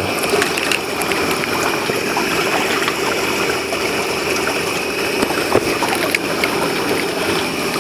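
Steady rush of muddy runoff water flowing across the ground and around a car's tyre.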